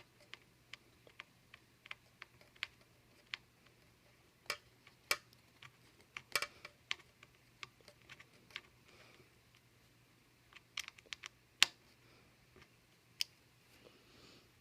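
Sparse, irregular small clicks and taps of fine repair tools on the metal parts of an opened iPhone 5S, a few much sharper than the rest, with a faint steady low hum underneath.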